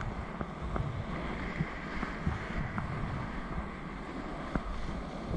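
Fast-flowing river rapids rushing steadily, with wind buffeting the microphone and a few soft knocks.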